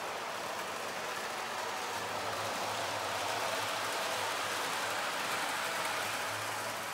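Model train running on the layout track: a steady rushing noise of the running train, with a low motor hum that comes in about two seconds in as the locomotive passes close.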